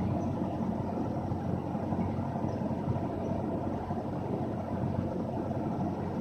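Cessna 172's piston engine running steadily at low power while taxiing, heard from inside the cockpit as an even hum.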